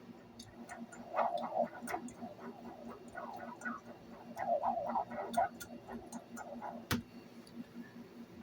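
Scraping and rubbing with scattered light clicks as the answering machine's tape head and mechanism are cleaned and handled, over a low steady hum.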